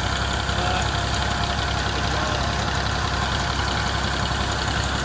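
Massey Ferguson 135 tractor engine running steadily, driving a small mini thresher as it threshes pearl millet, the engine drone and the thresher's whirring mixed at an even level.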